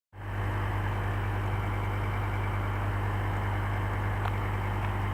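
Engine idling steadily, with an even low hum.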